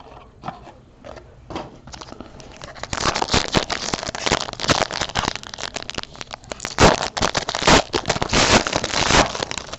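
Trading card pack being torn open and its wrapper crinkled, a dense crackling from about three seconds in, with a few sharper snaps.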